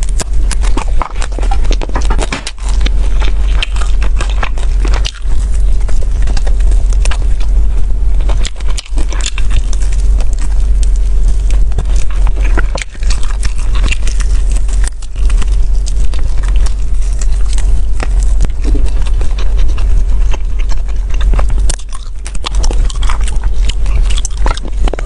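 Close-miked eating sounds: wet chewing, lip smacking and biting as food is pulled off a skewer with the mouth, a dense, irregular run of clicks over a steady low hum.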